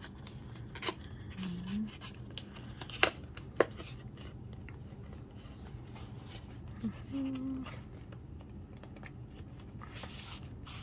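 Hands handling and opening a boxed CD album package: rustling and rubbing of card and plastic, with two sharp clicks or taps about three seconds in.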